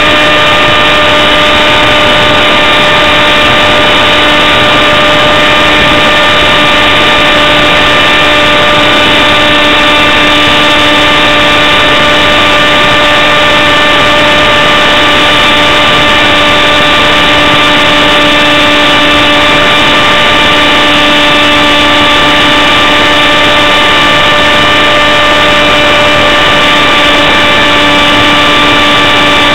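RC model jet's motor running at a steady whine over rushing air noise, close and loud on the onboard camera's microphone, its pitch barely changing.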